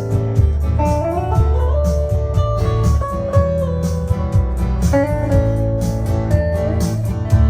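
A band playing an instrumental passage: a lead guitar melody with bent, gliding notes over strummed guitar, bass and a steady beat of cymbal ticks.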